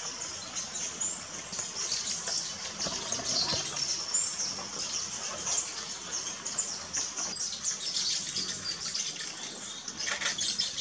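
Wild birds chirping and calling, many short high-pitched notes overlapping over a steady background hiss of forest ambience.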